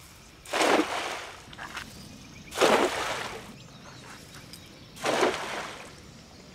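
A cast net being hauled in through the water by its rope: three splashing swishes about two and a half seconds apart, each sharp at the start and fading over about a second.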